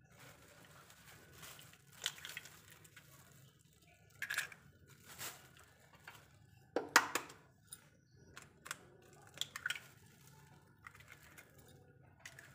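Two eggs cracked open one after the other into a glass dish: a scattering of sharp cracks of eggshell, the loudest about seven seconds in.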